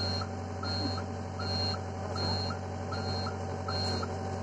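Hitachi excavator's engine running steadily under a short electronic beep repeating about every three-quarters of a second: the travel alarm sounding while the tracks are driven.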